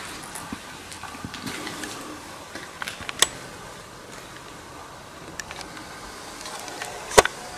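Footsteps on a rubble-strewn concrete floor: scattered small crunches and clicks over a faint steady hiss, with a sharp click about three seconds in and a louder one near the end.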